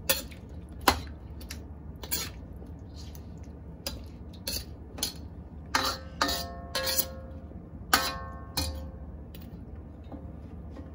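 Metal ladle stirring in a wok of braised ribs and potatoes, a string of clinks, knocks and scrapes against the pan, a few of the strikes ringing. The clatter dies away near the end.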